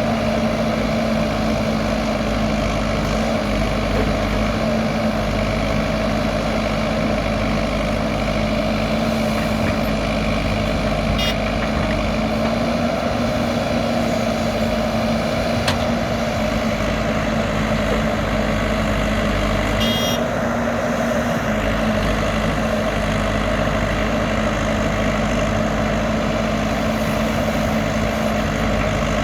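Heavy diesel engines of a backhoe loader and a tipper truck running steadily while the truck is loaded, with a brief higher-pitched pulsing sound about twenty seconds in.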